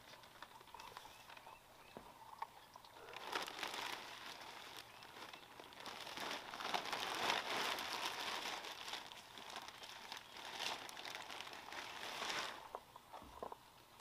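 Paper sack crinkling and rustling as it is handled, a crackly run that starts a few seconds in and stops near the end.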